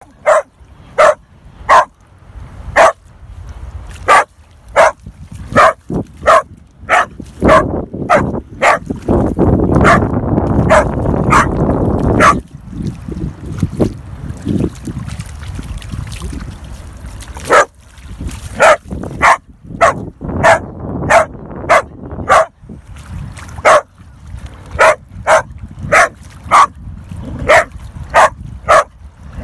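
A dog barking repeatedly in short, sharp barks, about one a second, with a pause of a few seconds past the middle. A rushing noise runs under the barks for a few seconds near the middle.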